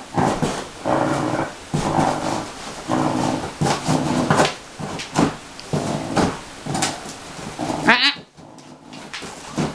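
Basset hound giving a string of short barks, about one a second, with a high rising yelp about eight seconds in.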